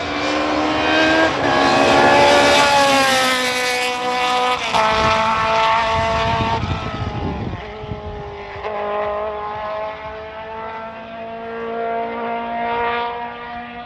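Racing car engine at full throttle accelerating hard up the hill, its pitch climbing between gearchanges and dropping sharply at upshifts about five and nine seconds in. It is loudest in the first four seconds.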